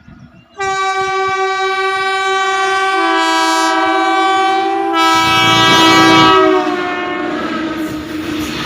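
Train horn sounding one long, loud blast that starts about half a second in, with a second, lower tone joining about three seconds in to make a chord. The noise of the passing train comes in about five seconds in. The horn's pitch falls and it fades out around seven seconds, leaving the train's running noise.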